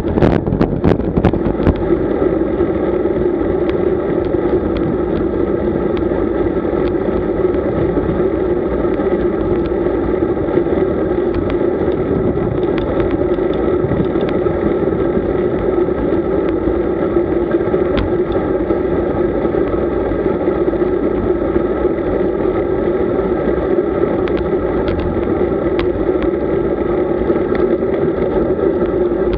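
Steady droning ride noise from a camera mounted on a moving road bike: wind on the microphone and road vibration, with a constant hum. A few sharp ticks come in the first couple of seconds.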